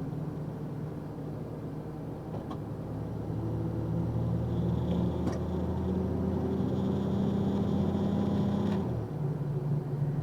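Box truck's engine running, heard from inside the cab. The engine pulls harder and louder from about two and a half seconds in, with a faint high whine on top, then eases off abruptly near the end. A few faint clicks are heard along the way.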